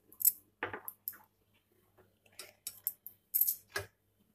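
A spoon and small serving dishes clinking and tapping as they are handled: a string of short, light clicks, some single and some in quick pairs.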